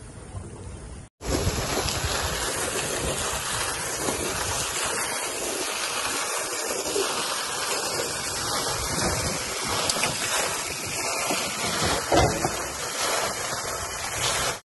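Floating lake fountain's water jet falling and splashing onto the water surface close by: a steady, even rushing that starts abruptly about a second in.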